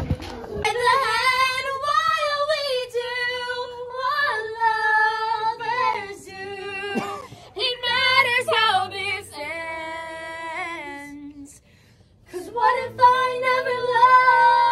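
Teenage girls belting out a song in loud, full voice, holding long notes, with a short break about twelve seconds in before the singing picks up again.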